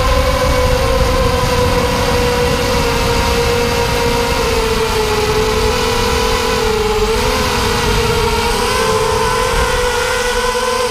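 Six brushless motors spinning 5x4 bullnose propellers on a 330-size FPV hexacopter in flight: a steady whine whose pitch sags slightly midway and then comes back up, over a low wind rumble.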